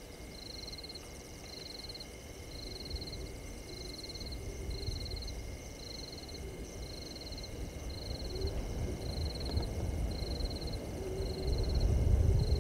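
Night chorus at a waterhole: a high, rapid trill repeating evenly about one and a half times a second, with a few lower notes now and then. Under it is a low noise that grows louder toward the end.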